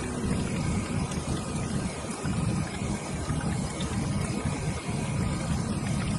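Thick coconut-milk chicken curry bubbling as it simmers in a pan and is stirred with a spatula: a steady, low, churning bubbling.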